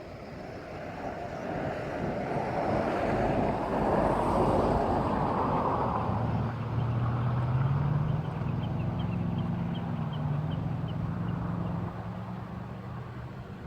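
A road vehicle passing: its noise swells to a peak about four seconds in, then a steady low engine hum holds through most of the rest.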